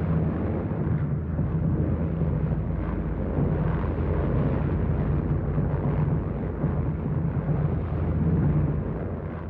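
Multi-engine propeller bomber droning in flight: a steady low rumble with a deep, even hum.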